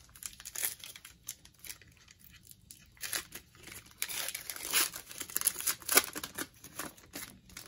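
Foil wrapper of a football trading-card pack being torn open and crinkled by hand, a run of irregular crackles loudest about four to six seconds in.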